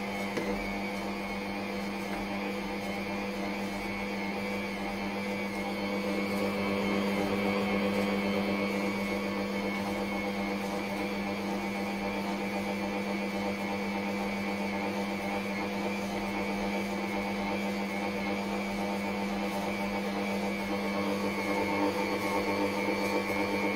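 Bosch MUM58L20 stand mixer's motor switching on and running with a steady hum, its kneading hook working a butter-and-flour shortbread dough in the stainless-steel bowl, likely at speed setting 4. The machine runs quietly.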